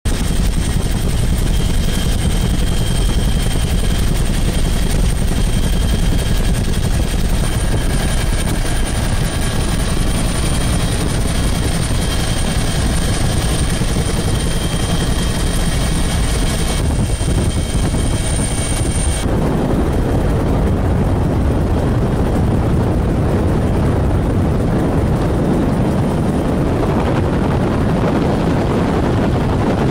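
Helicopter noise heard from on board: a steady engine and rotor drone with a faint high whine. About two-thirds of the way through, the whine drops away and a heavier rushing drone takes over.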